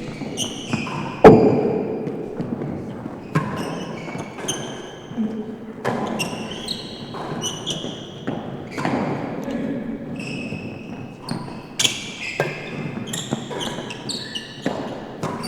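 A real tennis rally in an enclosed court: repeated sharp ball strikes off rackets, walls and the sloping penthouse roof, echoing in the hall, the hardest hit about a second in. Short high-pitched squeaks of players' shoes on the court floor sound between the hits.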